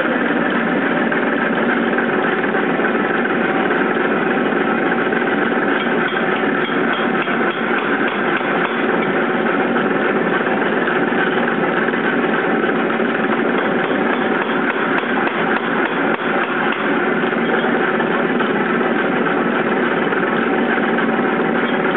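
250 lb Nazel self-contained air hammer running, a loud, steady mechanical noise with no pauses.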